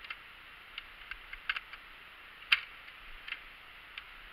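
Scattered light clicks and ticks, with one much louder, sharp airsoft gun shot a little past halfway through.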